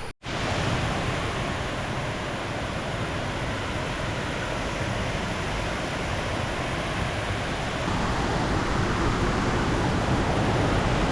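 Steady rushing of a monsoon-swollen waterfall, with no rhythm or pitch, growing a little louder about eight seconds in.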